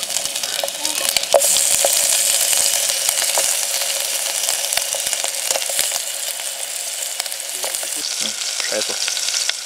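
Ring sausage frying in hot fat in a pan: a steady sizzle with small pops, louder from about a second and a half in.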